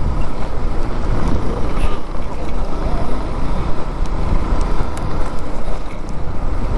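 Wind buffeting the microphone over steady road and engine noise while riding a motorcycle at speed.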